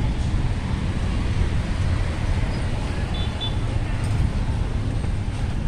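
Steady street background noise with a low rumble of road traffic.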